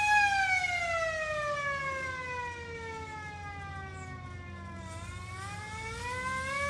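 Small hand-crank air raid siren wailing: its pitch falls steadily for about five seconds as the cranking slows, then climbs again as it is cranked back up.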